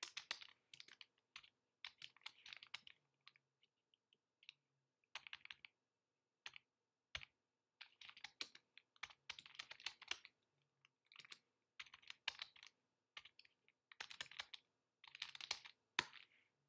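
Faint typing on a computer keyboard: irregular runs of key clicks broken by short pauses.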